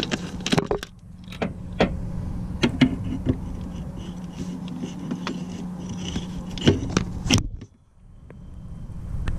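Metal tools and parts being handled: scattered sharp clicks and knocks over a steady low hum. Near the end the sound nearly cuts out for a moment, then fades back up.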